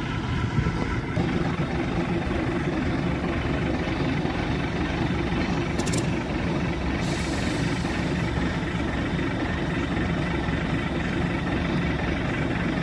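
Narrow-gauge diesel locomotive's engine running steadily at low revs as the locomotive moves slowly forward, with a few brief hisses.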